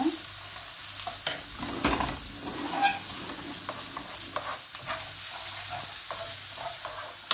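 Chopped green beans and onion sizzling in oil in a non-stick pan while being stirred with a wooden spatula: a steady sizzle with frequent short scrapes and taps of the spatula against the pan, a couple of them louder about two and three seconds in.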